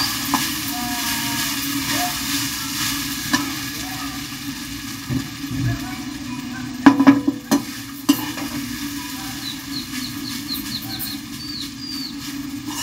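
Rice and vegetables being stir-fried in a pan with a metal slotted spoon: a steady sizzle with the spoon scraping and tossing through the rice, and a few sharp clicks a little past halfway.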